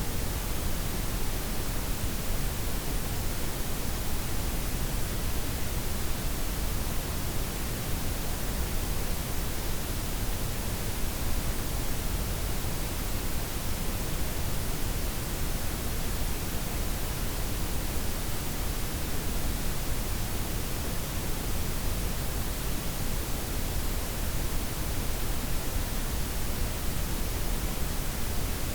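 Synthesised broadband noise, a blend of white, pink and brown noise, as a steady unchanging hiss with a deep rumble underneath and a softened top.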